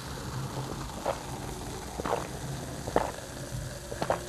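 A person gulping cola from a glass: four swallows about a second apart, over a steady low hiss.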